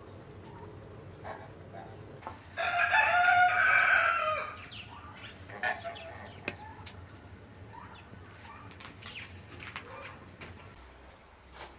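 A rooster crows once, a single long call starting about two and a half seconds in, followed by scattered short, softer clucks from the flock.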